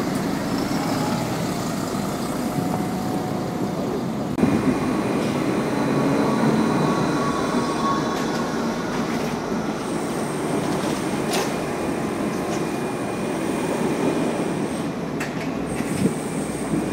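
St. Gallen electric trolleybuses passing close: a steady electric drive whine with thin high tones over tyre and road noise. The sound changes abruptly about four seconds in as a long double-articulated trolleybus pulls past.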